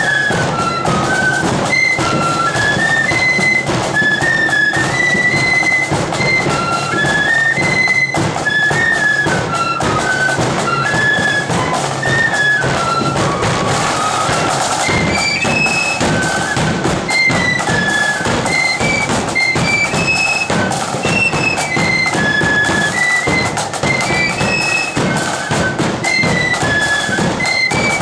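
Marching flute band playing a brisk tune together on flutes, the high melody stepping up and down in short notes, with a bass drum beating a steady march time underneath.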